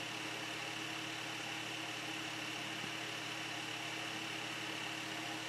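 Steady room hum and hiss with a faint, constant high whine, unchanging throughout.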